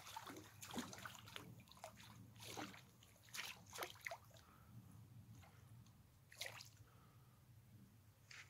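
A small hooked pike thrashing at the water's surface, making faint, irregular splashes: several in the first four or five seconds and one more at about six and a half seconds.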